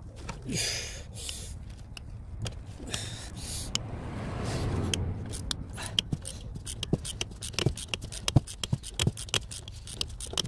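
Short hisses of a WD-40 aerosol spray in the first few seconds, then a run of sharp, irregular metal clicks and clinks from a hand tool working a seized glow plug back and forth, with a low rumble swelling in the middle.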